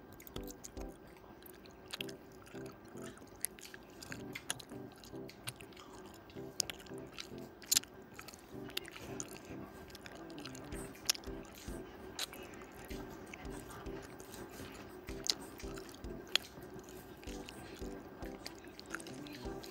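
Close-miked chewing of rice and pork curry, with many short sharp mouth clicks and smacks scattered throughout. Faint background music plays underneath.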